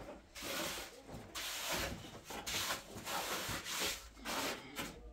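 A steel trowel or float scraping and rubbing across a cement floor surface in repeated strokes, about two a second, smoothing the fresh cement finish.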